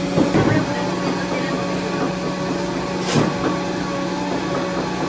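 Steady machine hum of commercial kitchen equipment, with a short clatter just after the start and one sharp knock about three seconds in.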